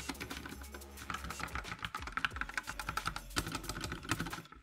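Fast typing on a Savio Blackout Red 60% mechanical keyboard with Outemu Red linear switches and ABS keycaps: a rapid, dense run of keystroke clicks that stops briefly near the end. For red switches they are not among the quietest.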